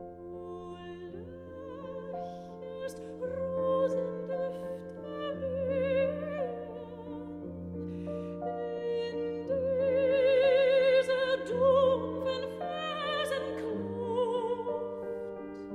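Slow, classical-style background music: an operatic melody with a strong, wavering vibrato over held low notes, swelling and falling back phrase by phrase.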